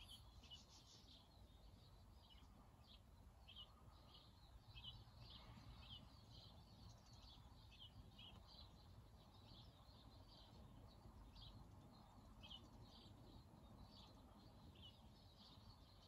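Faint, short, high chirps from small garden birds, one or two a second, over a low background hush.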